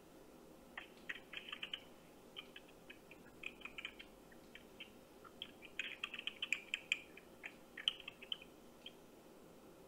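Computer keyboard typing heard over a phone's speaker: irregular runs of quick key clicks with short pauses between them, over a faint steady line hum.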